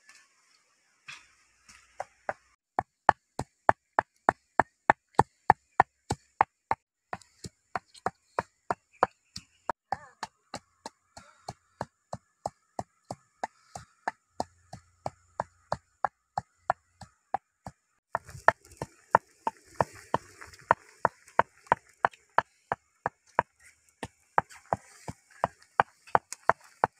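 A pestle pounding in a mortar, striking steadily about two to three times a second. A soft rushing hiss joins the strikes about two-thirds of the way through.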